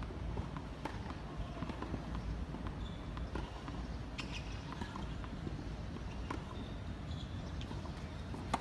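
Scattered light knocks of a tennis ball on a hard court over a steady low background rumble, then a sharp crack of a racket striking the ball on a serve near the end, the loudest sound.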